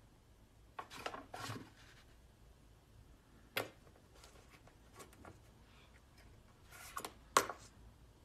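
Scattered clicks and scrapes from a metal security door as a poodle clings to it and tugs the rope tied to its handle. The loudest clicks come near the end, as the door comes open.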